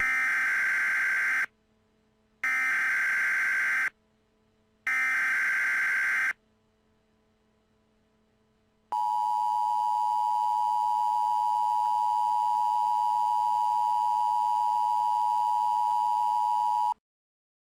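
Emergency Alert System tones marking the start of a new alert. First come three short bursts of the SAME digital data header, each a screeching chirr of about a second and a half with a second's pause between. After a pause of a few seconds comes the steady two-tone EAS attention signal, which holds for about eight seconds and cuts off abruptly.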